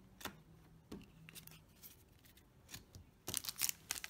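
A few light taps of trading cards being handled and set down, then from about three seconds in a dense, rapid crinkling of a foil booster pack being picked up and handled.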